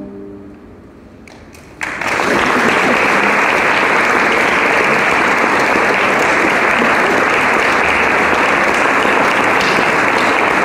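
The band's final brass chord dies away. A few scattered claps follow, and the audience breaks into steady applause about two seconds in.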